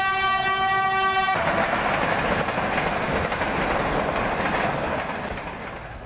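Diesel-electric locomotive horn (HGMU-30R) sounding a long, steady blast that cuts off about a second in, followed by the steady rushing noise of the approaching train, fading near the end.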